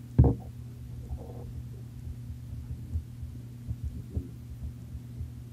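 A steady low hum, with one loud bump just after the start and soft, uneven low thumps after it.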